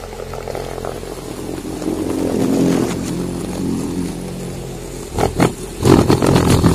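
Dramatic soundtrack bed under title cards: a sustained low drone that slowly swells, then two short heavy hits about five seconds in and a loud rumbling blast near the end.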